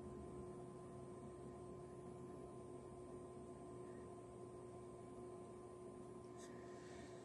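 Near silence: room tone with a faint steady hum made of several even tones, and one faint tick near the end.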